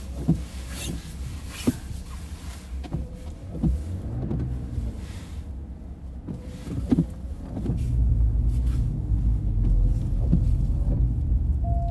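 Car cabin: steady low rumble of the engine and road as the car is driven and turned around, swelling in the later part. Scattered light clicks and knocks come through it.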